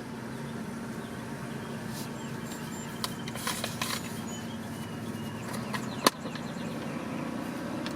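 Car engine running with a steady low hum, heard from inside the cabin, with a few small clicks and one sharp click about six seconds in.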